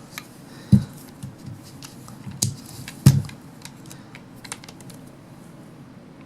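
Clicks and knocks from cordless ratchets being handled: a few sharp taps, the loudest about three quarters of a second and three seconds in, among scattered lighter ticks. No motor runs.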